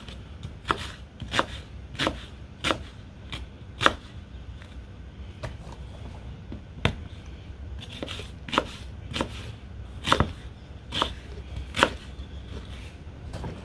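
Chef's knife chopping a large onion on a wooden cutting board: a sharp knock of the blade on the board about every half second to a second, with a slower stretch in the middle.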